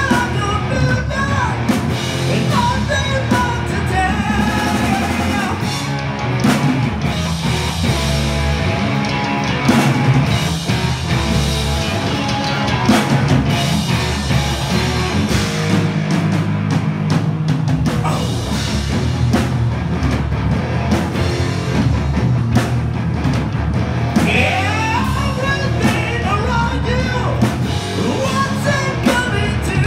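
Live metal band playing loud: distorted electric guitar, bass guitar and drum kit, with shouted vocals at the start and again near the end.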